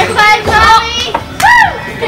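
High-pitched voices calling out in sing-song cries, with one rising-and-falling whoop about a second and a half in.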